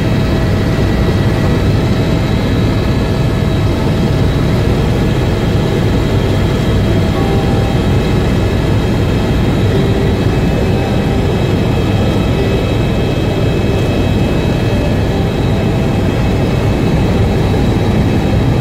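Helicopter engine and rotor noise heard inside the cabin in flight: a steady, loud rumble with a few faint, steady whining tones above it.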